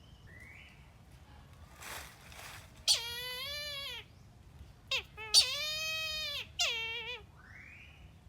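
A kite calling in a series of four mewing cries, each a drawn-out, slightly wavering note. The first comes about three seconds in, and the longest and loudest comes around the middle. Shorter, fainter rising squeaks come near the start and near the end.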